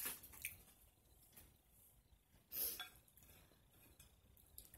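Faint clicks and clinks of fingers picking at food on a plate, with one louder, noisier burst of handling about two and a half seconds in.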